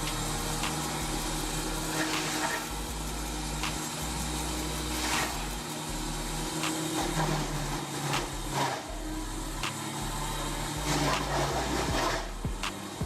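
Engine-driven wood planer running, its Ford 300 inline-six gasoline engine droning steadily. Sharp cracks and knocks of wood being worked come at irregular intervals, about a dozen in all.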